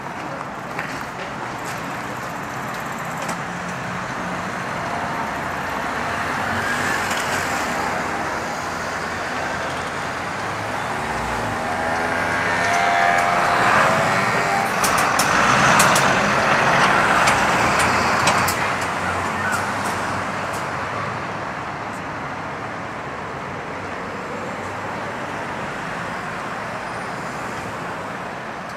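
Busy city street traffic: a steady hum with cars passing one after another, the loudest going by about halfway through, with a few sharp clicks as it passes.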